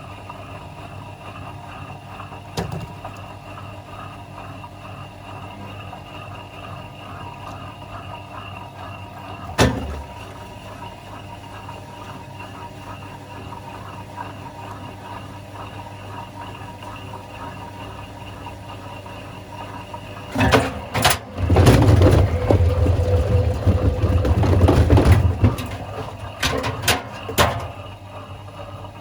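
Miele washing machine running with a 6-litre water bottle in its drum: a steady motor hum with a couple of single knocks, then, about two-thirds of the way through, a loud stretch of heavy low rumbling and knocking lasting about six seconds before it settles back to the hum.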